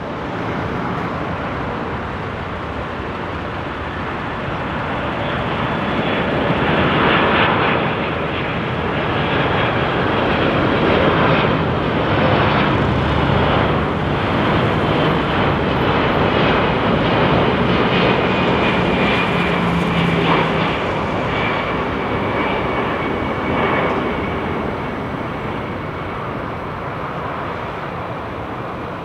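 Boeing 747-400's four jet engines on final approach: a loud rushing jet noise with a faint high whine. It swells as the airliner passes low overhead, stays loud for a long stretch, and eases off over the last several seconds.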